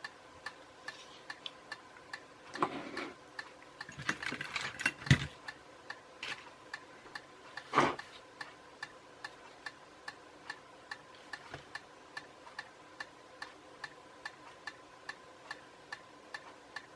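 Steady ticking, about two ticks a second, like a clock in the room. There are brief rustling handling noises about three and five seconds in, and a single louder knock near eight seconds.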